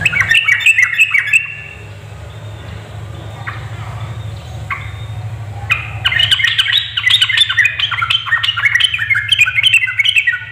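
Yellow-vented bulbul (trucuk) chattering in quick bubbling notes: a short burst at the start, a few single notes, then a longer rapid run through the second half, over a low steady hum.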